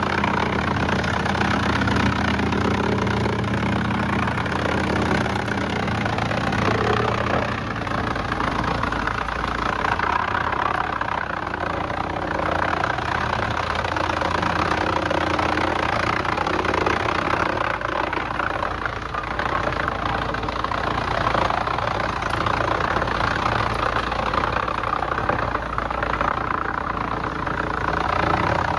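Heavy engine-driven machinery running steadily: a constant low engine hum under a dense rushing noise, with no distinct knocks or bangs.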